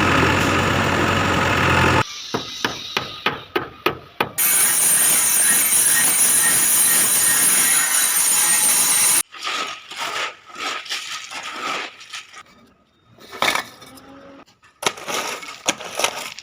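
A run of construction-work sounds cut together. A loud steady machine noise stops abruptly about two seconds in, followed by a quick series of knocks. A loud machine with a high whine runs for about five seconds and cuts off, and irregular knocks and impacts follow.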